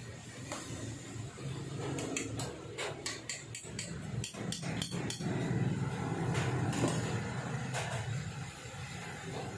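Heavy cast-iron martabak pan knocking and clattering against the gas stove's grate as it is gripped and moved by hand: a quick run of a dozen or so metallic clicks and knocks a couple of seconds in, over a steady low rumble.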